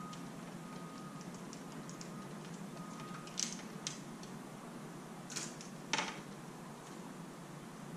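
Fishing rods being handled in a white PVC rod holder: four sharp clicks and knocks between about three and six seconds in, over a steady background hum.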